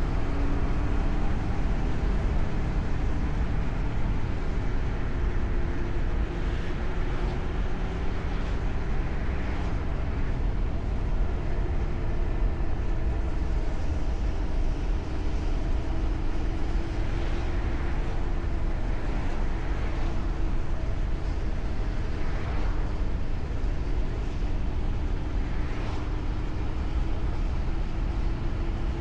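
Car driving along a road: a steady engine drone that rises and falls slightly in pitch, over tyre and road noise.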